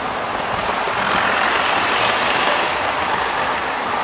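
Model railway train running on the track, a steady whirring noise of its motor and wheels on the rails.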